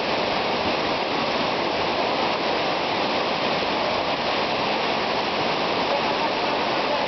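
Strong current of floodwater rushing through a street, a steady, unbroken water noise.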